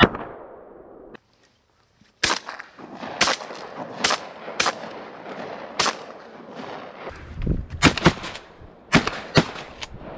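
A string of about ten 12-gauge shotgun shots, fired singly and in quick pairs.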